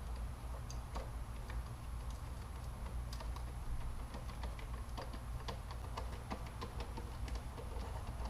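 Irregular light clicking and ticking from a screwdriver driving the small T20 security screws that hold the plastic mass airflow sensor in the intake. The clicks come thicker through the middle of the stretch, over a steady low hum.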